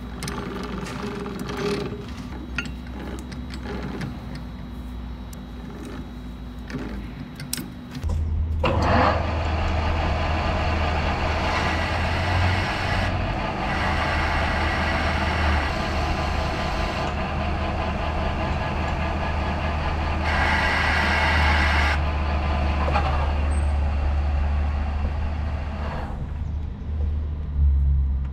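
Metal lathe threading a steel bolt: light clicks and knocks over a low motor hum, then about eight seconds in the lathe comes up loud, a steady low hum with a hissing cutting noise that swells and eases.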